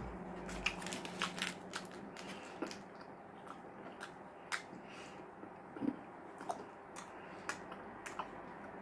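A man chewing a mouthful of Subway sub with his mouth partly open, making irregular mouth clicks and smacks.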